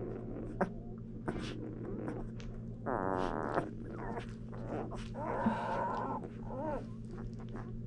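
Twelve-day-old Komondor puppies whining: a short wavering whine about three seconds in and a longer one a couple of seconds later, over a steady low hum.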